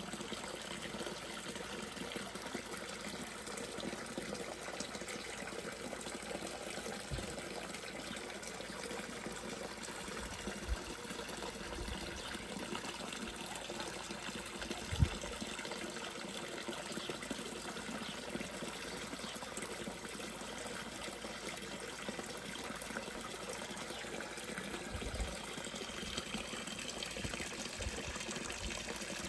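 Small garden pond fountain jet and inflow cascade splashing and trickling steadily into the pond. A few brief low thumps, the sharpest about halfway through.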